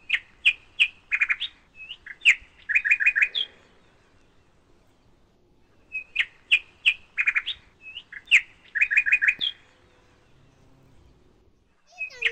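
A songbird singing the same short phrase twice, each time a few clear whistled notes followed by a quick run of notes, about three and a half seconds per phrase with a pause between.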